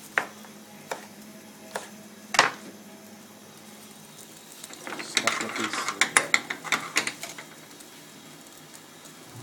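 Metal ladle knocking and scraping in a frying pan of prawns cooking in sizzling gravy over a high gas flame: a few separate knocks, then, about five seconds in, a quick run of clattering stirring over the sizzle.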